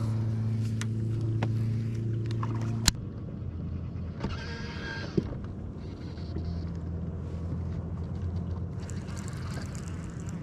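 Bow-mounted electric trolling motor humming steadily. About three seconds in there is a click and the hum changes to a lower, quieter one as the motor's speed setting changes.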